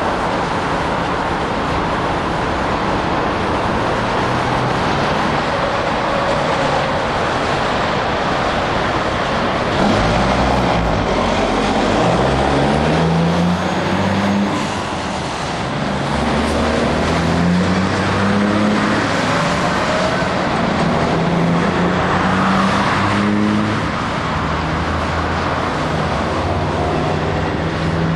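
Heavy road traffic: a steady rush of tyres and engines. From about ten seconds in, truck engines pull away under load, each engine note climbing in pitch and dropping back several times as it changes up through the gears.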